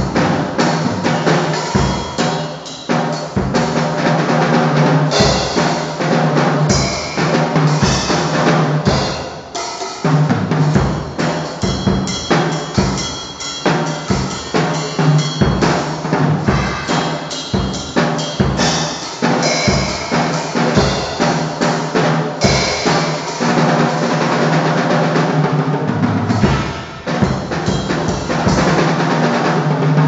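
Acoustic drum kit played continuously and densely, with bass drum and snare strokes and fast rolls; the playing eases briefly twice.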